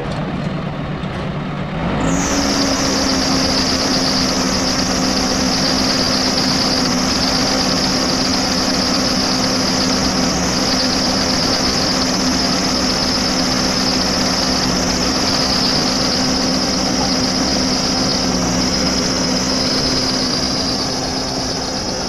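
Diesel engine of a JCB 3DX backhoe loader revving up about two seconds in and then holding a steady high speed, with a steady high-pitched whine above it; it eases off slightly near the end.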